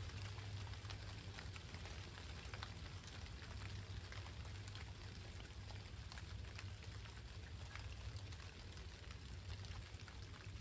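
Light rain falling and dripping, with many close individual drops ticking over a steady patter, and a steady low rumble underneath.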